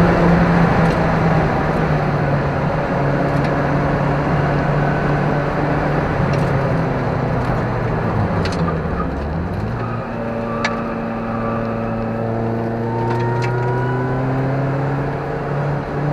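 Car engine heard from inside the cabin over tyre and road noise. It runs at steady revs, drops in pitch briefly about nine seconds in, then climbs slowly as the car accelerates.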